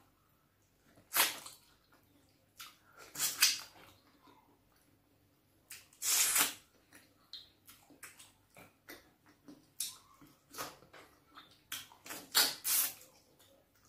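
Close-miked wet eating sounds of fufu with bitter leaf soup eaten by hand: irregular squelching mouth noises and lip smacks, with a few louder, longer wet slurps among many short clicks.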